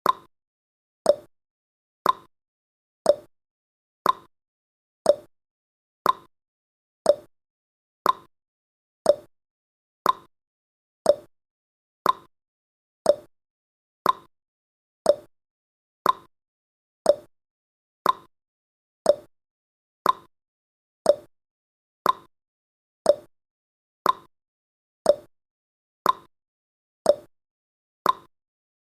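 A countdown timer's ticking sound effect: a sharp tick-tock at one stroke per second, alternating higher and lower in pitch, each stroke dying away quickly.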